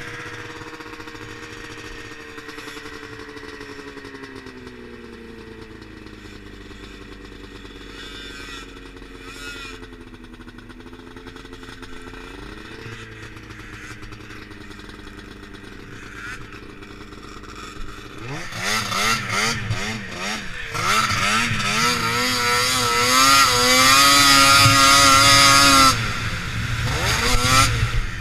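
Ski-Doo 600RS snowmobile's two-stroke engine running at low revs, then revving hard from about eighteen seconds in, much louder, its pitch wavering up and down. It eases off briefly near the end and picks up again.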